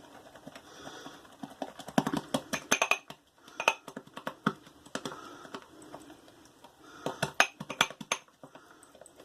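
Boar-bristle shaving brush whipping lather in a shaving mug: bursts of quick wet swishing and clicking as the brush works against the mug, with short pauses between the bursts.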